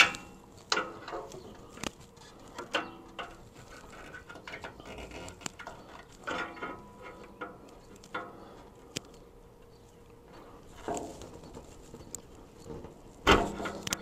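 Scattered small clicks and rustles of hands working a wire connector and heat-shrink off a motorcycle's rear brake light switch. There is a louder thump near the end.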